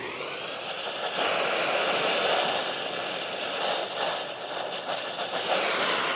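Brazing torch flame burning steadily, a continuous noisy hiss, while it heats a refrigerant line to braze in a service port valve.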